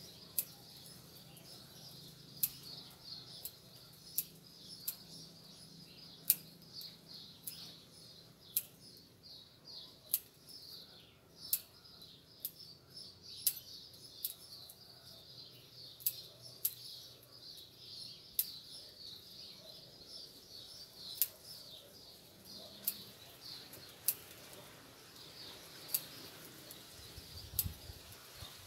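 Small bonsai scissors snipping Ficus microcarpa leaves, sharp clicks coming irregularly about once a second during partial defoliation. Birds chirp steadily in the background.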